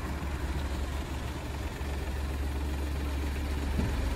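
Small car's engine idling steadily: the black Audi A2 waiting at the kerb with its engine running.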